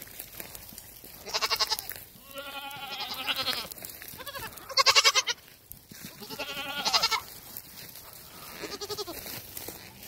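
Several young goats bleating, about six wavering calls in turn, the loudest about halfway through. These are hungry cries from kids begging for feed.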